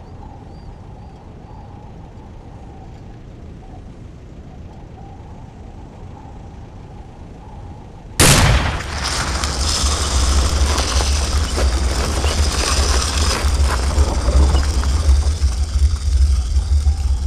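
A faint, steady low ambience, then a sudden loud boom about eight seconds in that gives way to a loud, sustained rumble with a hiss over it.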